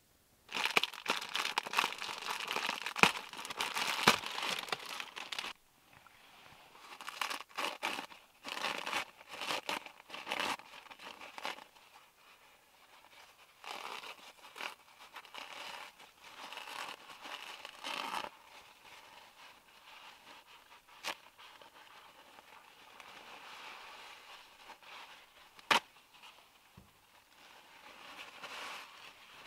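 Paper towels pulled off a roll, torn and crumpled in the hands: irregular bursts of crinkling and rustling, loudest in the first few seconds and softer later, with a couple of sharp clicks in the second half.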